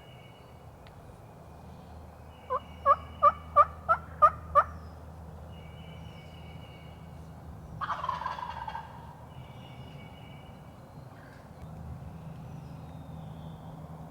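Wild turkeys calling: a quick run of about seven sharp yelps, each falling in pitch, then a tom gobbling once for about a second.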